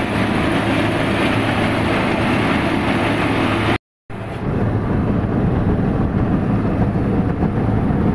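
Wheat seed-cleaning machine running: a steady motor hum under a dense rattle of grain shaking over its perforated sieve. A short break of silence falls about four seconds in.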